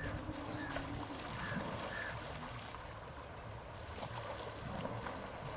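River water splashing and trickling as a domestic elephant lying in the shallows is scrubbed and doused by hand.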